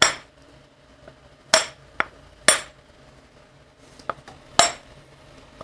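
Hammer blows on a sealed wheel bearing being driven into a Harley-Davidson wheel hub: four sharp metallic strikes at uneven intervals, with a couple of lighter taps between. The bearing was going in slightly crooked, and the blows are nudging it square in its bore.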